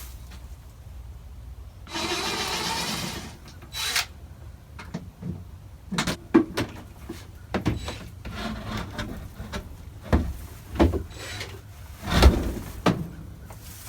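Wooden nest-box boards being worked loose and handled: a rough scrape lasting just over a second about two seconds in, then a string of irregular knocks and clatters of wood.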